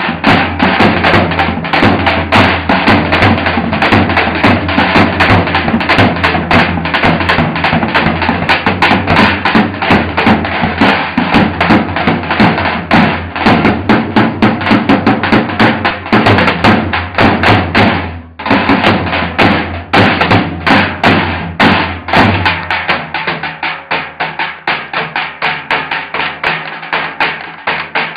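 Davul bass drums beaten with the heavy beater and the thin stick in a fast, dense rhythm of loud strikes. There is a brief break a little past the middle, and the playing turns lighter and more evenly spaced toward the end.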